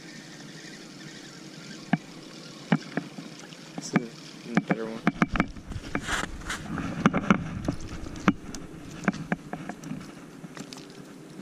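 Scattered clicks and knocks of a spinning rod and reel being handled. From about five seconds in, a low rumble and a denser run of knocks come in as the angler moves along the wooden pier boards in sandals.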